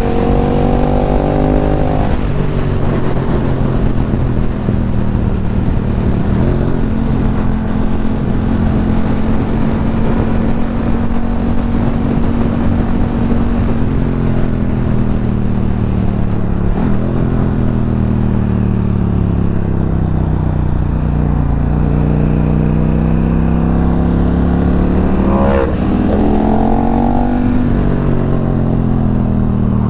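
Sport-naked motorcycle engine running under way with wind rush. It holds steady revs for about the first dozen seconds, then the engine note falls, climbs again, and eases back near the end.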